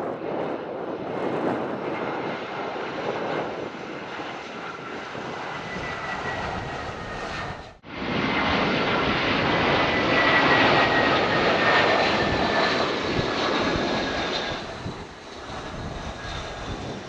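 Airbus A320-232 jet airliner's IAE V2500 turbofan engines on landing approach: a steady loud rush with a thin whine that slowly falls in pitch. The sound cuts out for an instant about eight seconds in, then comes back at its loudest.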